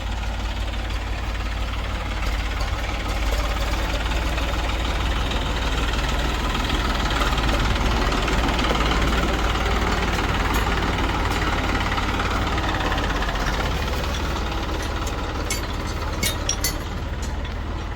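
Diesel engine of a backhoe loader or tractor running steadily, with a few sharp clicks near the end.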